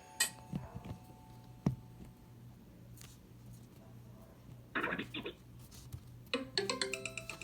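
Nokia 6230i phone between ringtones: a few faint clicks and a short scuffle over a low hum, then a new ringtone starts through the phone's speaker about six seconds in, a melody of short stepping notes.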